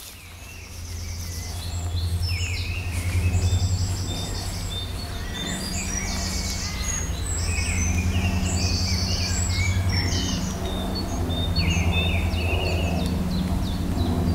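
Several wild birds singing and calling over a steady low rumble, with many short phrases and rapid trills overlapping. The sound fades in over the first couple of seconds.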